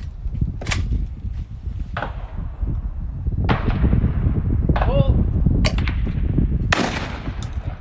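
Shotgun shots at clay targets: about seven sharp reports spread over several seconds, some louder and nearer than others, over a steady low rumble.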